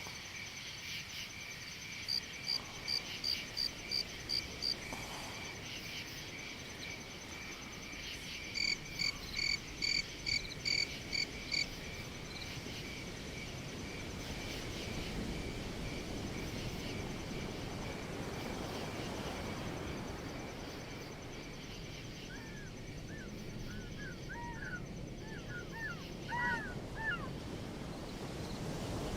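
Night-time chorus of insects: a steady high chirring, two runs of loud pulsed calls at about three a second, and a few short chirps near the end.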